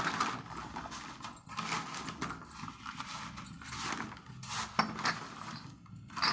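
Cups clinking and knocking irregularly as they are handled and set down, with one sharper knock about five seconds in.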